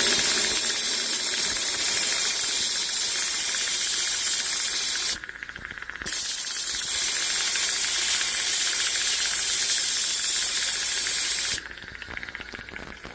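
Jewelry steam cleaner blasting a jet of steam over a necklace to clear off leftover polishing rouge: a loud steady hiss for about five seconds, a short break, then a second hiss of about five and a half seconds that cuts off near the end.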